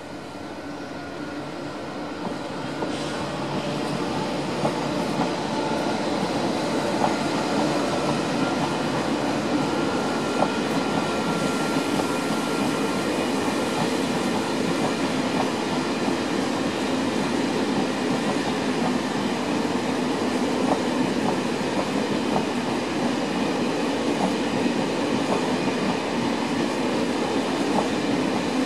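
Passenger train of single-deck coaches running past on the near track: the steady rumble of wheels on rail builds over the first several seconds, then holds loud, with scattered clacks. A faint high whine rides over it for the first dozen seconds or so.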